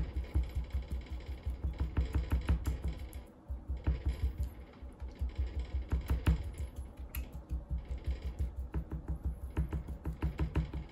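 A fork jabbed rapidly into raw pork belly skin, each stab knocking through onto a wooden cutting board: a fast, even run of dull thuds about five a second, with one short break a little past three seconds in. The skin is being pricked all over so it crisps when roasted.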